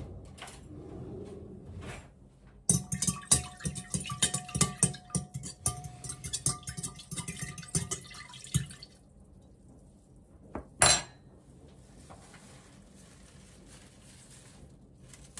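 Metal spoon stirring water in a round glass vase, rapidly clinking against the glass with a ringing tone for about five seconds, dissolving a sachet of cut-flower food. One sharp, loud clink comes a few seconds after the stirring stops.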